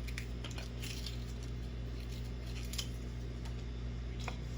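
Food packaging being opened by hand: a few short, scattered clicks and crinkles over a steady low hum.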